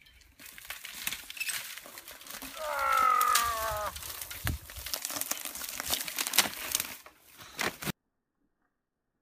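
A mountain bike comes through a tunnel of dry cane on a dusty trail, with a dense crackling and snapping of dry stalks and tyres crunching. About three seconds in, a drawn-out pitched call, falling slightly, sounds for about a second and a half and is the loudest part. All sound cuts off suddenly near the end.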